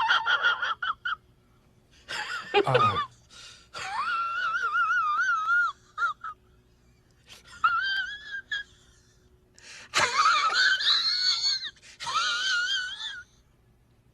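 A high-pitched wheezing laugh sound effect in about six bursts, its pitch wavering up and down, with short silences between bursts.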